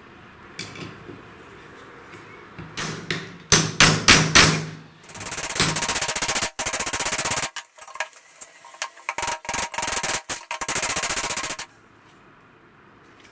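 A few sharp knocks, then a cordless drill driving wood screws into a wooden clamping block in several high-pitched whirring runs with short stops between them, drawing the block tight over the glued knife handle.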